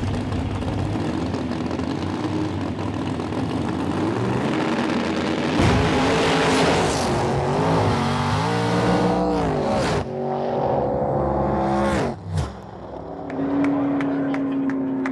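Drag race cars' engines at full throttle down the strip, the pitch climbing and then dropping sharply several times as they shift up through the gears. The sound drops out briefly about twelve seconds in, then a steady engine drone follows.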